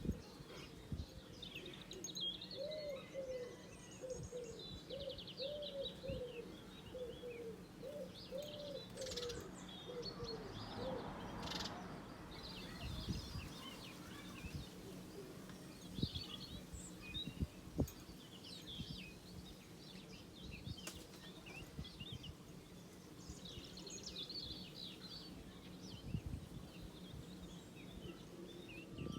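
Birds chirping and singing, with a run of low, evenly repeated call notes through the first ten seconds or so.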